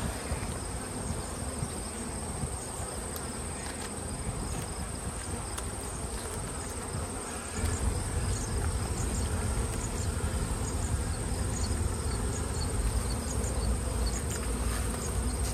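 Honey bees buzzing around an opened hive, a steady hum of many bees, over a constant high-pitched whine. A low rumble comes up about eight seconds in.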